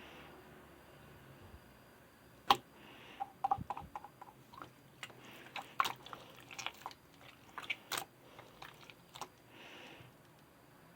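Irregular sharp clicks and short crunches, several a second at times, starting about two and a half seconds in and stopping near the end.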